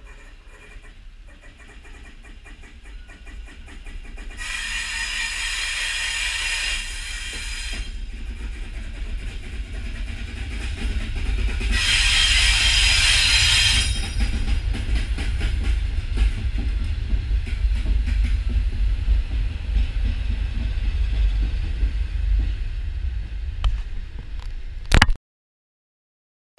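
Locomotive-hauled train, led by a Class 73 locomotive, sounding two long horn blasts of about three seconds each. Under them, the deep rumble of the locomotives and wheels on the rails builds as the train passes close by, then cuts off suddenly.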